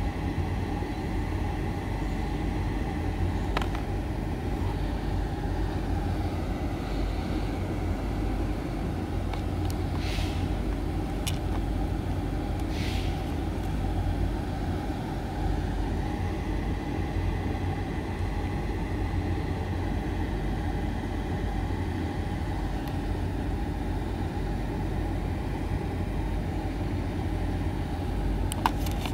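Steady low outdoor background rumble, with a few brief clicks and rustles from handling.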